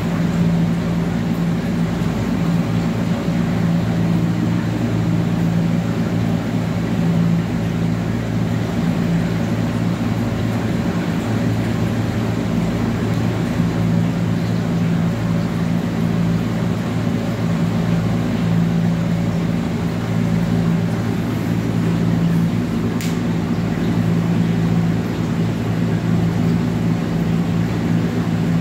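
Steady low machine hum with a constant pitch.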